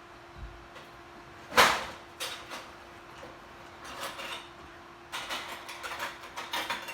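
Kitchen handling noises from a glass jar of juice, its lid and a spoon on a counter: one sharp knock about a second and a half in, then scattered clicks, and a quick run of clinks and clicks near the end.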